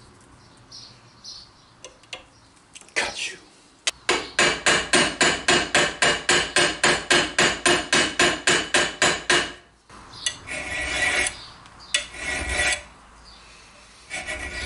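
A small hammer peening over a steel rivet through a ring pressed onto a bolt: a fast, even run of metal-on-metal taps, about four a second, lasting some five seconds. Then a few rasping strokes of a flat file dressing the rivet flush with the steel.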